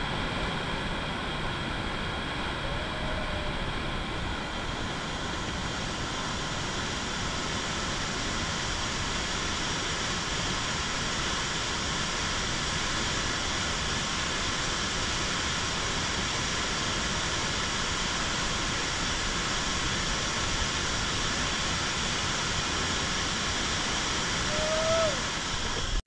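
Roar of a large waterfall crashing onto the rocks and pool at its base, a dense, steady rush of water. A faint brief whistle-like call comes twice, once about three seconds in and once near the end.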